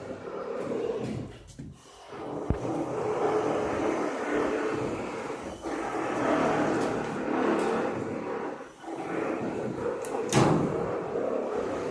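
Steady rumbling site noise with scattered knocks and clunks from a door being handled and fitted in its frame, and one loud knock about ten seconds in.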